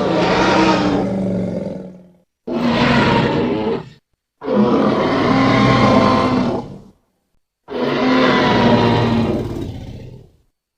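Tyrannosaurus rex roar sound effects: four separate roars, each about one and a half to two and a half seconds long, split by short silences.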